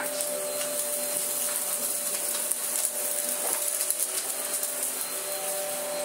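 ILIFE cordless stick vacuum running on carpet at max, its only power setting: a steady motor whine over a hiss of rushing air.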